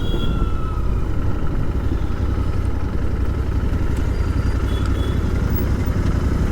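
Royal Enfield Interceptor 650's parallel-twin engine running steadily on the move, a continuous low rumble.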